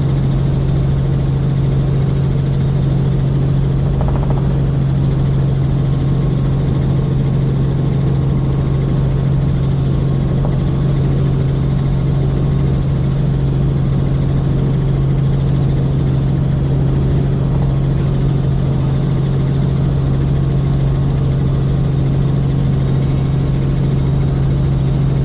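Helicopter in steady flight: a constant, loud engine and rotor drone with a strong low hum that does not change.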